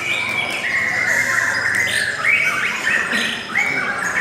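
Lovebirds chattering: an unbroken run of quick, overlapping high chirps and squeaky notes.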